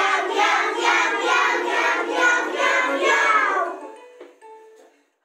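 A group of young children singing together in chorus; the song ends about three and a half seconds in and the sound dies away.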